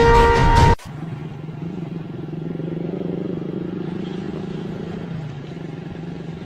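Music that cuts off abruptly under a second in, followed by a steady low hum of a vehicle engine running at idle.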